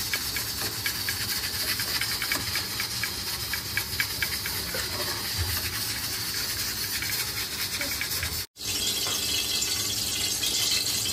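Steady hiss with faint, light clinks of a steel ladle in an aluminium pressure cooker as boiled beef and broth are ladled out. The sound cuts out for an instant past the middle.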